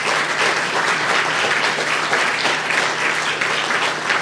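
Audience applauding: dense, steady clapping from many hands, with a faint steady low hum underneath.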